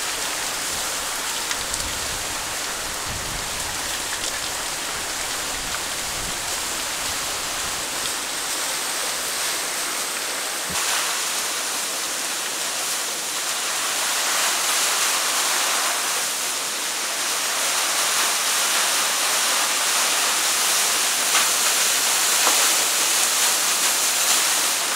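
Steady rushing of a waterfall, growing somewhat louder about halfway through.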